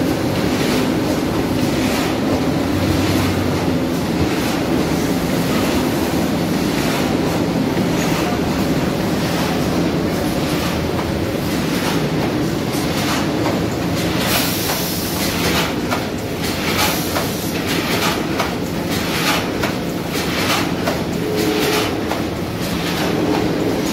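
XY-MY-1500 automatic flat die-cutter and creaser running as it cuts corrugated cardboard sheets: a steady mechanical drone with a rhythmic clacking from its cycling, the clacks sharper in the second half.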